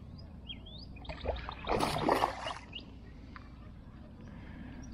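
A hooked bass splashing and thrashing at the water's surface for about a second, roughly two seconds in, as it is reeled up to the kayak. There are faint bird chirps before the splash.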